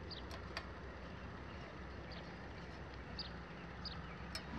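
Faint outdoor background with a bird giving short, high chirps every second or so, and a few small clicks from the carburetor's wire linkage and spring being handled.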